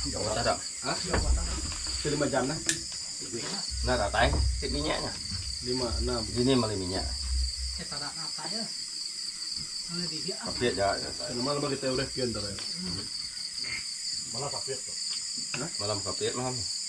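Steady high-pitched chorus of night insects, with people talking quietly in the background.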